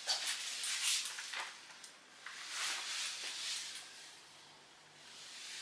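Soft rustling and handling noise, irregular swishes with a faint click or two, from clothing, a paper card and a handheld camera moving about.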